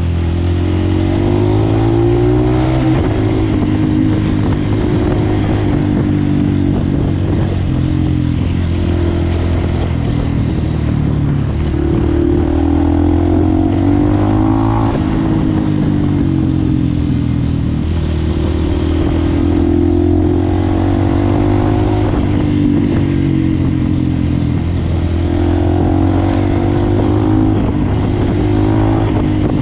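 Dirt bike engine running under way, its pitch rising as the throttle opens and dropping back again several times.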